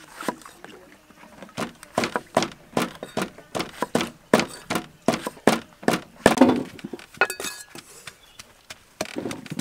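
Cleaver chopping eggplant on a thick wooden chopping block: a steady run of sharp knocks, about three a second, starting a second or so in and stopping a little past halfway, followed by a couple of duller, rougher sounds.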